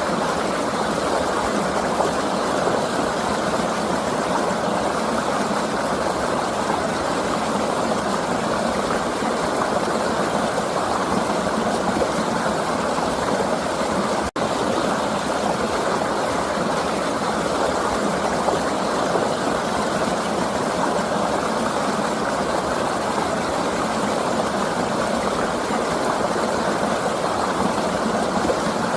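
River water flowing in a steady rush, with a momentary break in the sound about 14 seconds in.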